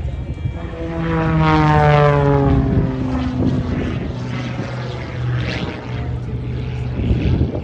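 Propeller engine of an MXS-RH single-engine aerobatic monoplane flying overhead under power. It is loudest and its pitch slides down steadily about one to three seconds in, then it settles to a steadier, quieter drone as the plane climbs vertically.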